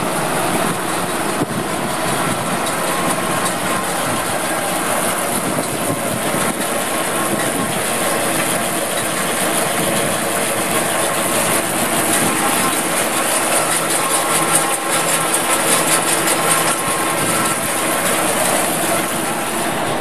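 Steady engine running with a constant hiss over it, unbroken throughout.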